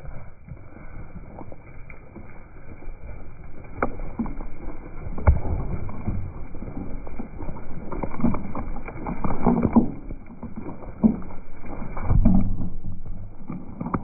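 Flock of Zwartbles sheep jostling past and over a camera on the ground: hooves trampling on soft ground, bodies and wool brushing and bumping against the microphone, with a sharp knock about five seconds in.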